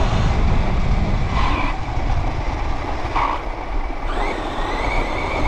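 Radio-controlled off-road car driving over grass, heard from a camera mounted on it: a steady rumble of tyres and jolts under the motor's whine. The whine comes in short spurts about a second and a half and three seconds in, then rises about four seconds in and holds.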